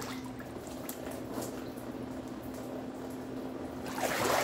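Cold-plunge tub water sloshing and dripping quietly while a person holds their head under, then a louder splash and rush of water streaming off as they surface about four seconds in. A steady low hum runs underneath.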